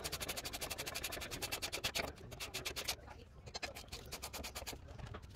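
Hand ratchet clicking rapidly, about a dozen clicks a second, while the caliper bracket bolts are run down, with a short pause about three seconds in.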